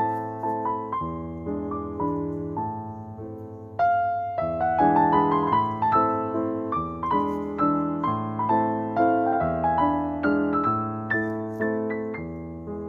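Background piano music: a gentle melody of struck, fading notes over lower held notes, with a new, louder phrase starting about four seconds in.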